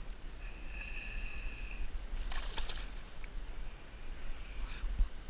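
A snook splashing and thrashing at the water's surface beside a concrete seawall, with the sharpest splash a little over two seconds in and a smaller one near the end, over a steady low rumble. A thin high tone sounds briefly near the start.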